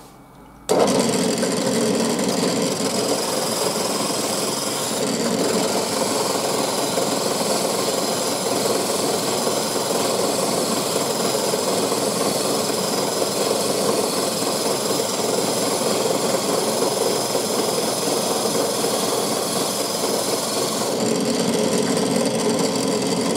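Benchtop drill press running, spinning a wooden cylinder pressed against sandpaper glued to a flat board to sand it straight and true. The sound starts suddenly under a second in and stays steady, with the wood rubbing on the abrasive.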